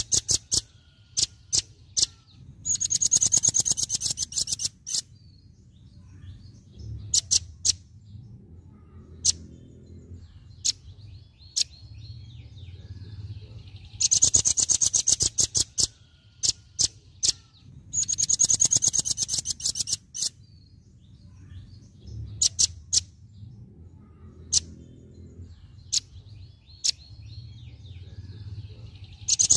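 Velvet-fronted nuthatch giving its rapid-fire 'tembakan' (shooting) call: bursts of fast, sharp high notes, each about two seconds long, with scattered single notes between them. The bursts come about every fourteen seconds.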